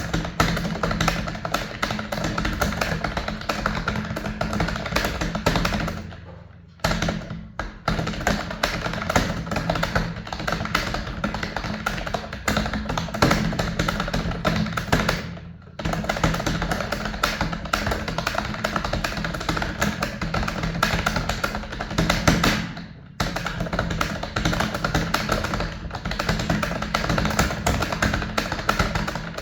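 Background music with a tapping, percussive beat, stopping briefly three times.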